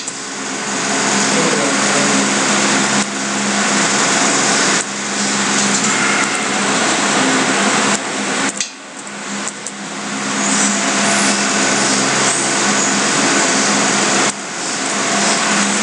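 Loud steady hiss with a low hum underneath, like a motor or fan running, dipping briefly a few times.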